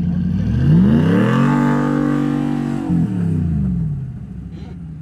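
A four-wheel-drive vehicle's engine revving hard on a run up a sand dune. The revs climb steeply, hold high for over a second, then drop off about three seconds in.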